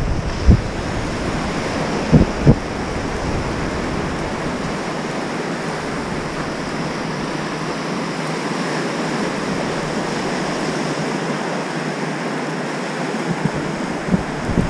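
Gulf surf washing steadily around the angler's feet in shallow water, with wind on the microphone giving a few low thumps in the first three seconds.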